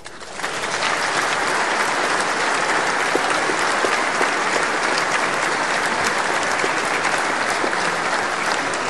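Large assembly applauding: many hands clapping in a dense, steady patter that builds up over the first second, then holds.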